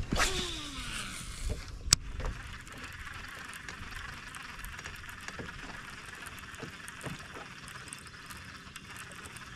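Fishing reel on a cast: the spool whirs out with a falling pitch, then a sharp click about two seconds in as the reel is engaged. After that comes the steady whir of the reel cranking a squarebill crankbait back in.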